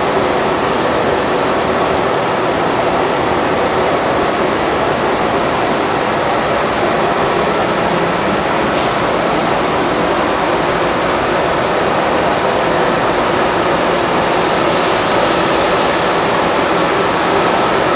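Steady rushing noise of a running shrink-wrap packaging machine with its heat shrink tunnel, level and unbroken throughout.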